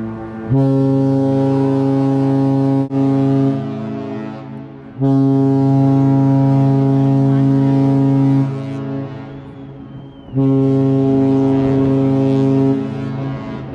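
Cruise ship horn sounding three long blasts at the same steady pitch, the first about three seconds, the next two a little shorter, each trailing off in an echo.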